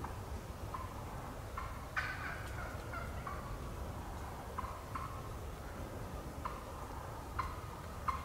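Wild turkey hens calling softly from the roost before fly-down: scattered short notes, with the loudest a run of several descending yelps about two seconds in.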